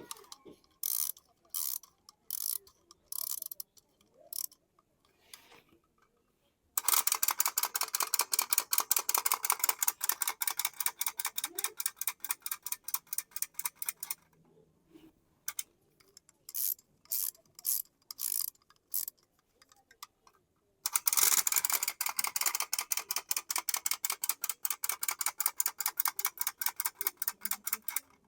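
Fast, even mechanical clicking from a small mechanism in two long runs of several seconds each, with scattered single clicks before and between them.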